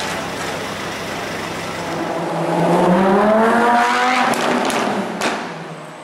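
Lamborghini Huracán's V10 engine accelerating hard, its note climbing in pitch about two seconds in and then fading as the car pulls away, with a few sharp cracks as it goes.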